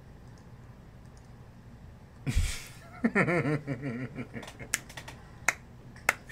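Faint low hum for about two seconds, then a thump, a man laughing briefly, and a few sharp finger snaps.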